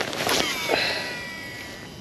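A cast with a baitcasting reel: a quick swish, then the spool whirs as line pays out, its high whine fading away over about a second.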